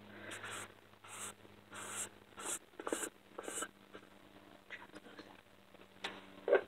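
Short scratchy rubbing sounds of hands working a small makeup container, about seven in the first few seconds, followed by two sharp knocks near the end.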